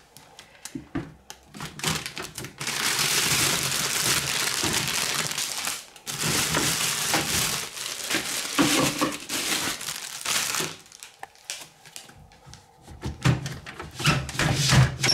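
Plastic packaging bag crinkling and rustling as it is pulled out and crumpled, in two long stretches with a short break between them, then a few light knocks and rattles near the end.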